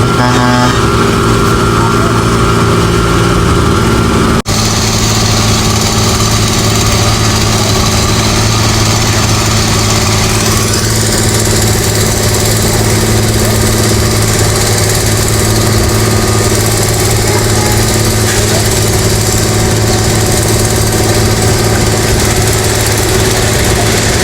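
Engine of road construction machinery running steadily. The sound cuts abruptly about four seconds in and carries on with a slightly different tone.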